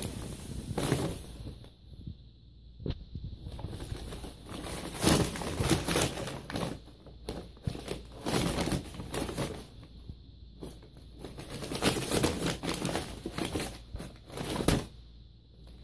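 Brown paper bag crinkling and rustling in irregular bursts as a cat rubs and pushes her head into it, with short quiet gaps between bouts.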